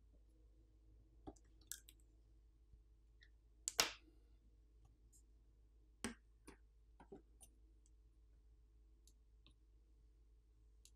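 A handful of faint, light clicks and taps from a partly disassembled Google Pixel 9a being handled as its motherboard is lifted out of the frame. The loudest click comes a little under four seconds in, with a few more around six to seven seconds in, over near silence.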